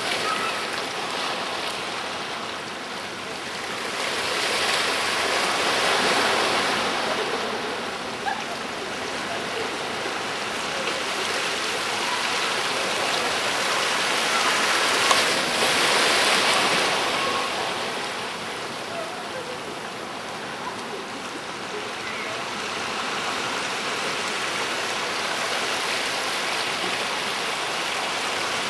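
Sea surf washing against a breakwater of concrete blocks: a steady rush of water that swells louder twice, for a few seconds each time.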